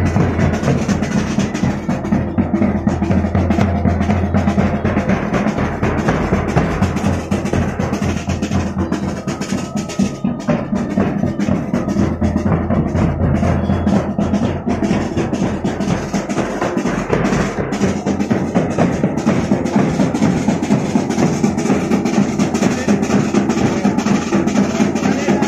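Marching band drums playing: large bass drums and other drums beaten continuously in a dense, steady rhythm.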